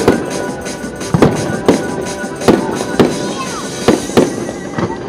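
Fireworks exploding overhead, about eight sharp bangs spaced irregularly over five seconds, each with a short echoing tail.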